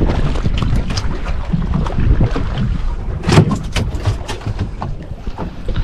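Wind rumbling on the microphone and water lapping against a small fibreglass boat's hull, with a run of sharp knocks about three seconds in.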